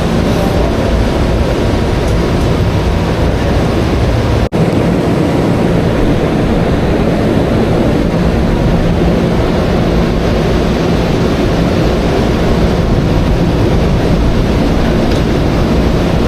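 Steady, loud rumbling noise with a low hum, like a vehicle running; it cuts out for an instant about four and a half seconds in.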